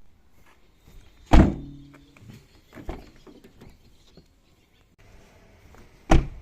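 A Mazda Atenza wagon's door is slammed shut twice, once about a second in and once near the end, each a loud thunk. After the first slam, a short low ringing lingers for about half a second, with a lighter knock soon after. The shuts are a test for the loose, hollow 'boyon' boom that the door makes when the adhesive holding its inner reinforcement beam comes unstuck.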